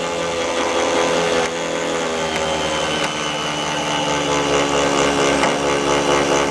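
Electric power tool motor running steadily under load, its pitch holding level with a slight sag in the middle.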